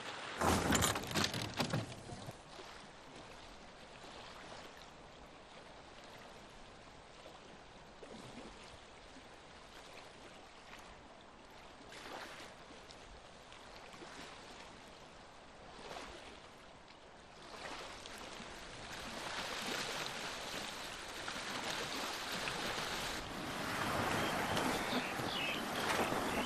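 Sea waves washing, a steady rush that is faint at first and grows louder over the last third, after a short louder noise in the first two seconds.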